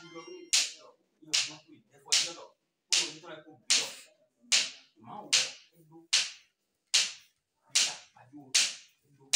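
A steady beat of sharp percussive cracks, about eleven of them a little under a second apart, each dying away quickly, with low voices murmuring between them.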